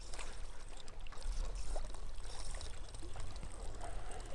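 Wind gusting against the microphone, with water lapping and splashing at the reservoir's edge. The low rumble of the wind swells about a second in.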